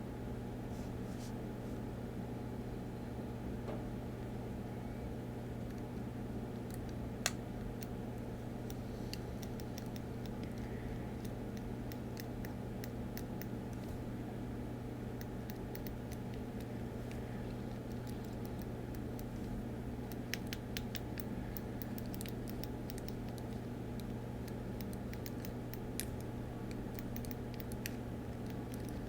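Steady low electrical hum of room noise, with faint scattered clicks and small taps from a Deco Rush decorative tape roller being pressed and rolled across a planner page. The clicks come mostly in the second half.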